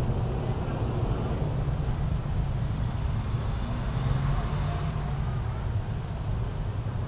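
Steady low background rumble of outdoor ambient noise.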